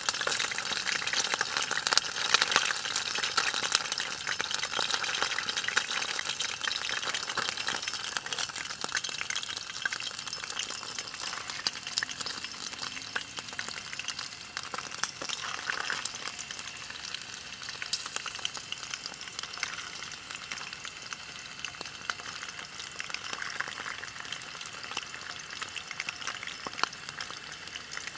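Eel pieces frying in hot oil: a dense sizzle full of fine crackles and pops, loudest in the first few seconds and easing off gradually.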